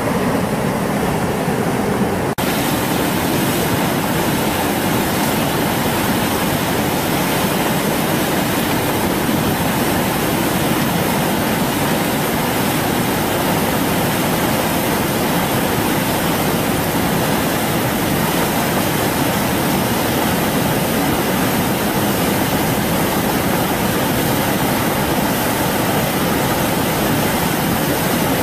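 Loud, steady rushing of a flash-flood torrent; it shifts slightly about two seconds in, then holds even.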